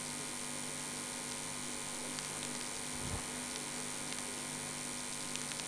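Steady electrical mains hum with hiss, and a faint low thump about three seconds in.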